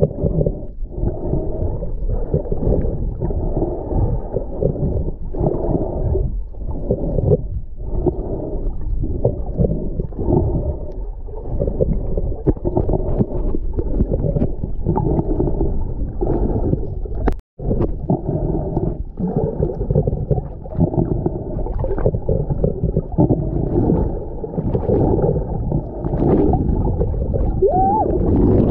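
Muffled underwater noise heard through an action camera's waterproof housing while snorkeling: a dull, steady rush of water with gurgles and knocks, all low and muffled. It cuts out for an instant about two-thirds of the way through.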